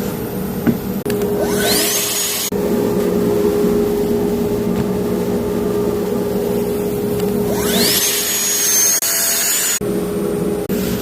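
A track saw spins up twice, its whine climbing to a steady high pitch, over the steady drone of a running dust extractor or shop vacuum. The sound changes abruptly several times.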